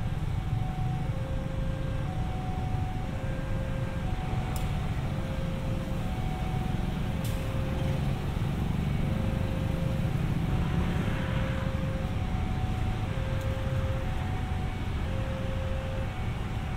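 Electronic warning alarm alternating two steady tones, low then high, each about a second long, over the steady low rumble of a running engine.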